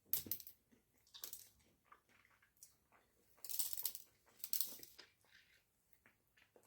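Close-miked eating of a cream-filled pastry: a bite right at the start, then chewing in short bursts, the loudest a little past the middle.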